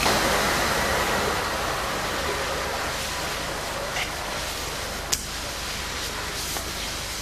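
Steady background hiss, fading slightly, with a faint click about four seconds in and a sharper click about a second later.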